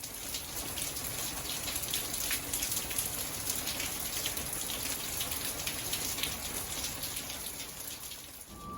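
Steady rain falling, with many separate raindrops pattering. It drops away shortly before the end.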